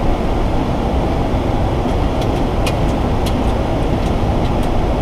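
Steady rush of airflow and air-conditioning noise inside a Boeing 737 cockpit during the approach descent, with a few faint clicks in the second half.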